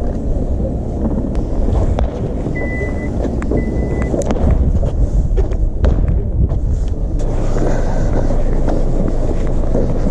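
Wind buffeting the microphone in a steady low rumble, with scattered clicks and knocks from handling. Two short high beeps sound about two and a half and three and a half seconds in.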